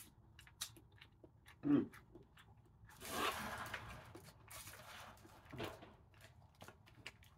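Eating snow crab legs: the shell cracking with short crunches and clicks, a longer noisy stretch of the meat being torn and sucked out about three seconds in, and chewing, with a brief hum of the voice about two seconds in.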